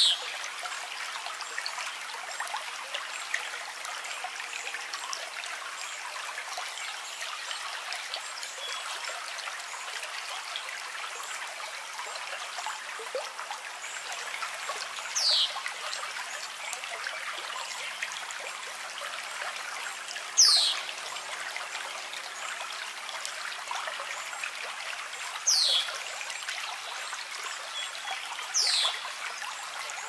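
Steady sound of a trickling stream, with short high chirps that fall sharply in pitch, heard five times, four of them in the second half.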